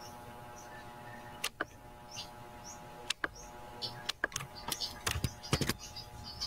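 Irregular sharp clicks and taps from a computer mouse and keyboard, thickest in the second half, over a steady electrical hum. Short high bird chirps repeat in the background.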